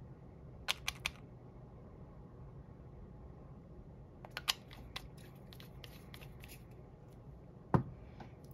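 Small sharp clicks and light taps from nail-stamping tools and polish bottles being handled on a desk: three quick clicks about a second in, another cluster about halfway, a faint scratchy sound after it, and a duller thump near the end, over the steady hum of a desk fan.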